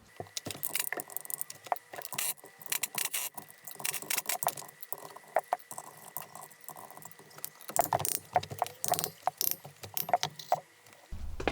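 Metal hand tools and gearbox parts clinking and rattling in quick, irregular clicks as the gearbox is being opened, with a faint steady high whine underneath.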